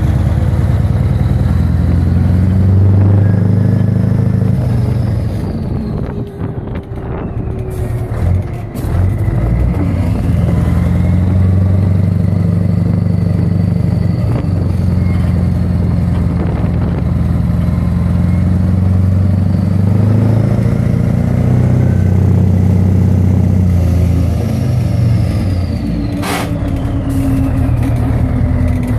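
Scania 143's V8 diesel engine running, heard at the exhaust tailpipe, its pitch rising and falling several times as it is revved and let drop back.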